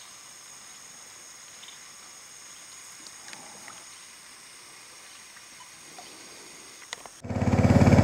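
Rainforest ambience with a steady high-pitched insect drone and a few faint ticks. About seven seconds in, a loud boat motor running steadily cuts in abruptly.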